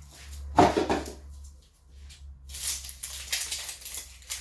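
A knife clattering against other kitchen utensils as it is picked up, followed by dry, crackly rustling from onion skins being peeled.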